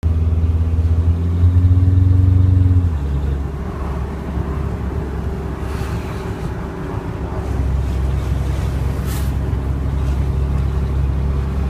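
Late-2004 Cummins 5.9-litre 24-valve turbodiesel running with an exhaust leak at the turbo downpipe, caused by a misaligned V-band flange. It runs faster for about the first three seconds, then drops to a lower steady idle.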